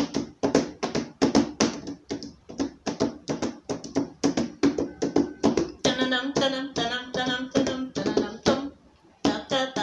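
A hand slapping rapidly and rhythmically on a box, about four to five strikes a second. A woman's voice sings along for a moment near the middle.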